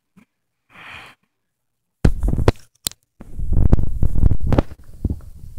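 A few faint clicks and a short hiss, then, about two seconds in, loud muffled rumbling and thumps of something rubbing and bumping right against the phone's microphone, most likely the Samoyed puppy's fur and paws pressing on the phone as it chews a plastic toothbrush.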